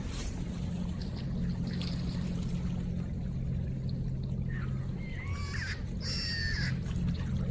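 River water running with a steady low hum beneath it. A bird gives a few short gliding calls in the second half.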